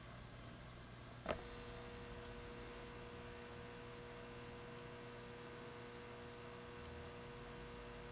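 A single sharp click about a second in, after which a steady mid-pitched electrical hum sets in and holds, over a low background hum.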